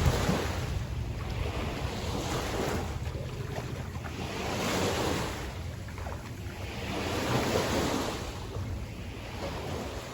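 Sea waves washing onto the shore, the surf noise swelling and easing every few seconds, with wind buffeting the microphone.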